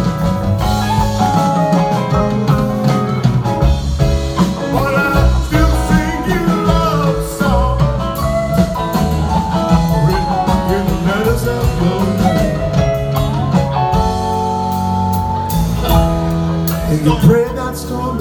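Live rock band playing electric guitars, bass and drums.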